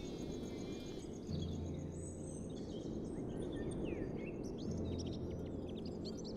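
Outdoor nature ambience: many short bird chirps over a steady low background noise. A fast, even insect pulsing runs through the first second, and a low steady hum comes in twice.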